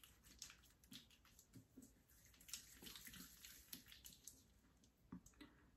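Faint wet rubbing of fingertips massaging foaming face cleanser over wet skin, with soft irregular small clicks.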